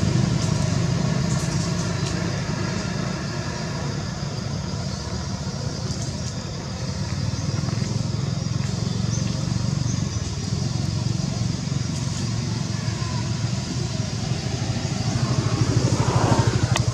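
An engine running steadily at low revs, a constant low pulsing hum.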